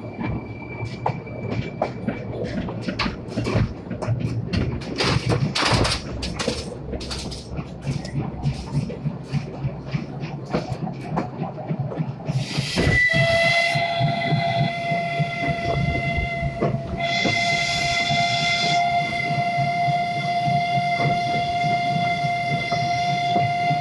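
Narrow-gauge park train running with wheels clicking and knocking over the rail joints; about halfway through, the Borsig steam locomotive's whistle starts one long, steady blast that holds to the end.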